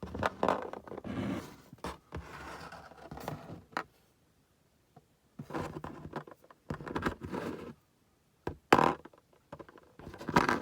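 Small plastic model figures and their packaging being handled: irregular scrapes, rustles and light knocks, with a short pause about four seconds in and a sharper knock near nine seconds.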